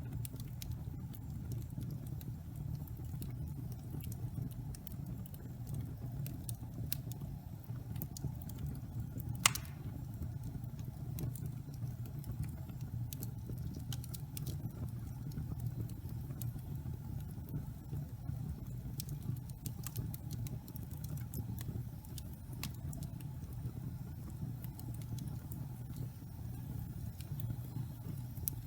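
Wood fire burning in a fireplace, crackling with scattered sharp snaps over a steady low rumble, and one loud pop about nine seconds in.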